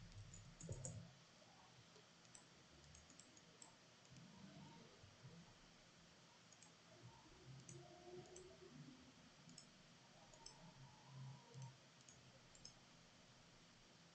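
Near silence: room tone with faint, scattered computer mouse clicks, a slightly louder knock just under a second in.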